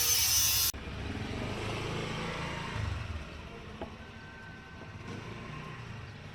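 A loud hiss that cuts off abruptly about a second in, then the low rumble of a motor vehicle engine that slowly fades away, with a few faint clicks.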